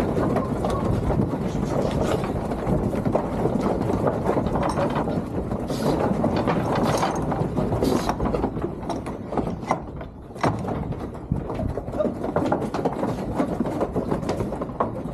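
Continuous clattering and rattling, dense with small knocks, starting suddenly.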